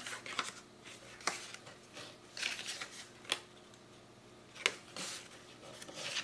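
A stack of small paper pocket scrapbooking cards being flipped through by hand: soft paper rustling, with a few sharp clicks as card edges snap past each other.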